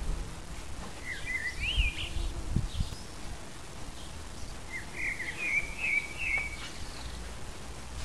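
Common blackbird singing: two warbling phrases, one about a second in and another around the middle, over a steady low rumble.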